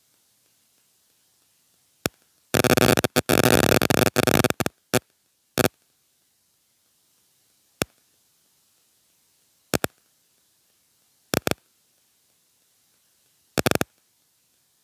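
Loud crackling static in a dense patch about two to five seconds in, then single sharp pops every couple of seconds, against near silence.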